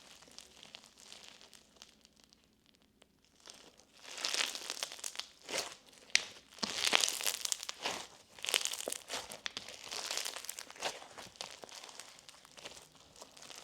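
Clear slime with foam bingsu beads being stretched and squished by hand, crackling and popping as air pockets burst. It is quiet for the first few seconds, then comes a run of sharp crackles and pops.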